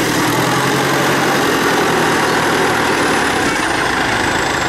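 Engine of a homemade small tractor running steadily under load as it drives through mud, its low even note fading a little about three seconds in.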